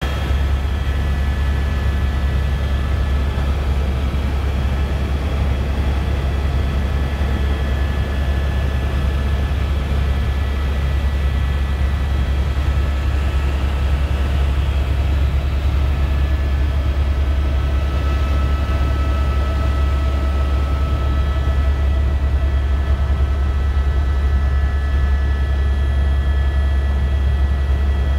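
Helicopter in steady forward flight heard from inside the cabin: a loud, constant low rotor drone with a few steady high whining tones over a rushing noise.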